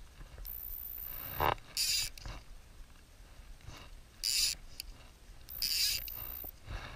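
Fly line being pulled off a fly reel by hand. The reel's click drag buzzes in two runs of about a second each, with a few short rasping swishes of line between them.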